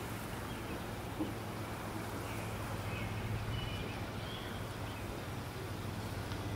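Steady outdoor background noise with a low hum, and a few faint short chirps around the middle.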